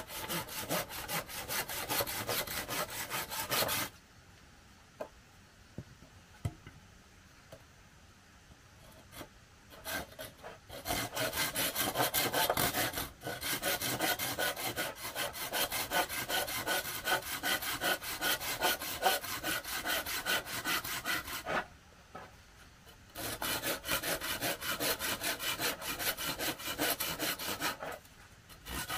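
Hand saw cutting wood in quick back-and-forth strokes, in several bouts broken by short pauses.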